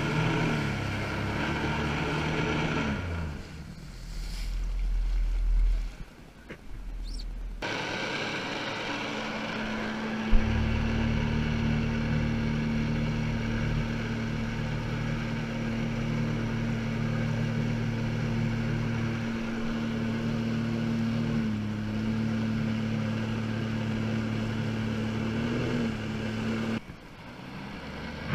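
Jet ski engine running steadily. Its pitch falls away about three seconds in, and a rougher, quieter stretch follows until a sharp knock about ten seconds in, after which the engine holds a steady note. It drops off near the end.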